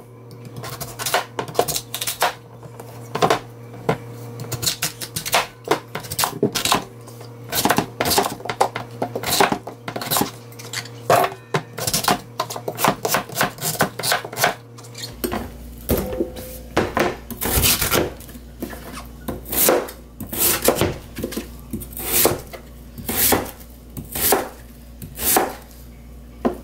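Chef's knife chopping a large Korean radish (mu) into thick chunks on a plastic cutting board: sharp, irregular knocks of the blade through the radish onto the board, one or two a second.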